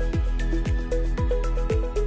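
Electronic background music with a steady kick-drum beat, about two beats a second, under short ticking percussion and held synth notes.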